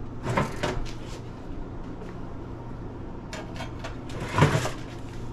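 Clunks and clicks of an oven's broiler door and rack being handled, the loudest knocks about half a second in and near the end, over a steady low hum.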